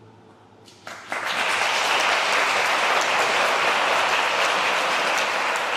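The last notes of a baroque string ensemble die away, then about a second in an audience starts clapping, and the applause holds steady.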